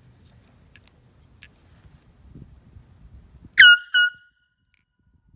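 Handheld air horn sounded in two short, loud, high-pitched blasts a moment apart. The first is a little longer and swoops up in pitch as it starts; faint handling noise comes before them.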